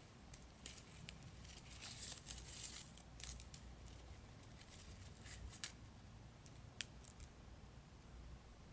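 Pompon ribbon tape rustling and crinkling as its pull strings are drawn through to gather the loops into a bow. Faint scratchy swishes come in clusters, with a sharp tick about seven seconds in.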